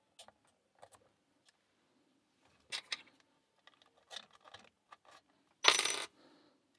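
Lock picks working a small Master Lock 120 padlock: scattered light metallic clicks and scrapes, then a louder metallic rattle lasting about half a second near the end.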